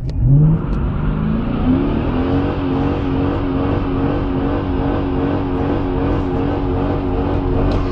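Car engine heard from inside the cabin, rising in pitch as it accelerates, with a brief drop about half a second in like a gear change, then running at a steady pitch while cruising, over road and tyre noise.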